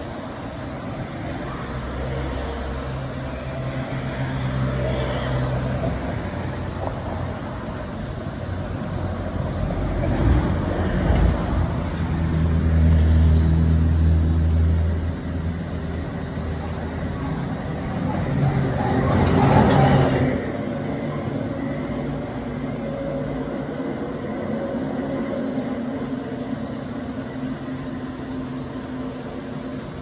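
Passing motor traffic: a low engine drone that swells about halfway through, and a louder rushing pass about two-thirds of the way in.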